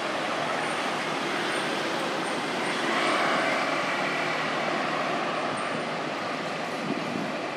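Steady traffic noise from passing road vehicles, swelling a little about three seconds in.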